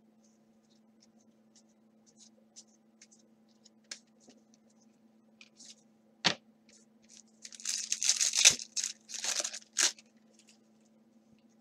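A Donruss baseball card pack's wrapper torn open by hand: two loud ripping tears about eight and nine and a half seconds in. Before them come soft ticks of cards being handled and one sharp tap.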